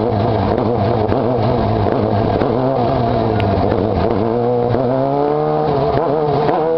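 Sportbike engine running on a wheelie-machine rig, its revs wavering up and down; near the end it is revved up and falls back, then starts to climb again.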